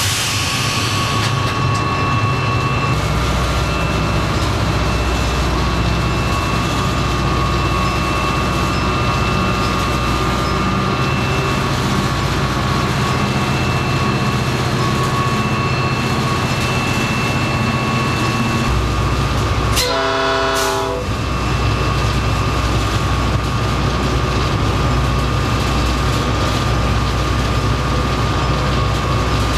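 Diesel locomotive under way, heard from inside the cab: a steady low engine rumble with running and track noise and a faint steady whine. The rumble grows stronger about three seconds in. About twenty seconds in there is a brief glitch where the low rumble drops out for about a second.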